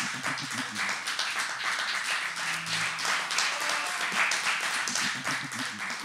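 Audience applauding steadily, a dense patter of many hands clapping at an even level.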